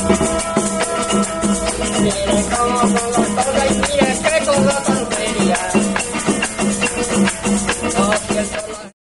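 Traditional Venezuelan folk music: maracas shaken in a fast, steady rhythm under a pitched melody. It cuts off suddenly near the end.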